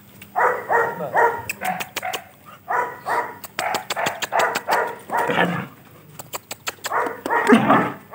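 Belgian Malinois barking repeatedly in quick runs of two to three barks a second, with short pauses between the runs, while lunging on its leash.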